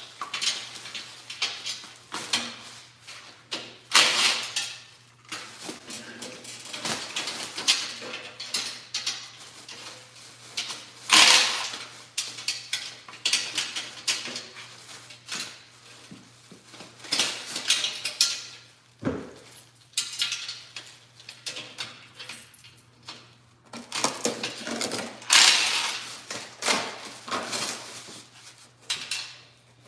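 Metal clinking and rattling from a steel shipping crate being unbolted, with several short runs of a cordless drill backing out the crate bolts.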